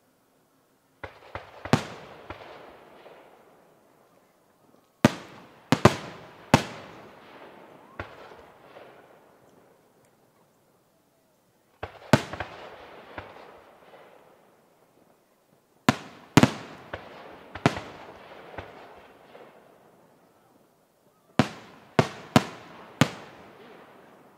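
Aerial firework shells bursting in the sky, sharp bangs in five groups of two to five, each bang followed by a rolling echo that dies away over a second or two.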